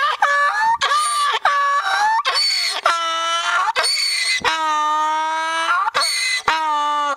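Domestic donkey braying at passers-by, as a guard animal would: a run of hee-haws, quick alternating high and low notes at first, then longer drawn-out notes in the middle, with short breaths between.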